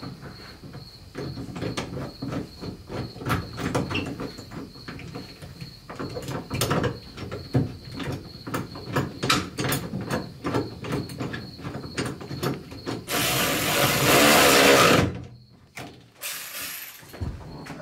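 Irregular clicks and knocks of hand-tool work on a car's door-pillar trim, over a faint steady high whine, then a loud rushing noise lasting about two seconds near the end.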